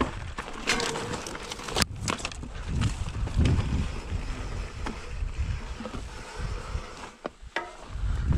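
Mountain bike rolling over rocky ground, with scattered clicks and knocks from the bike rattling over the rock, under a low rumble of wind on the microphone.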